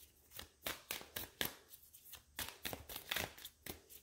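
A deck of tarot cards being shuffled by hand: an uneven run of short card slaps and flicks, about four a second.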